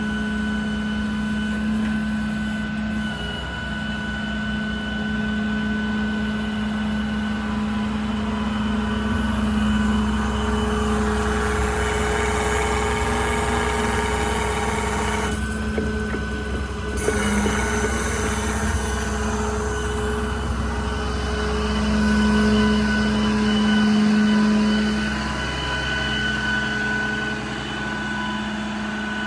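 Ram 5500's Cummins diesel running with the truck's hydraulic system driving the IMT crane: a steady low drone with a high whine on top, swelling louder briefly about three quarters of the way through.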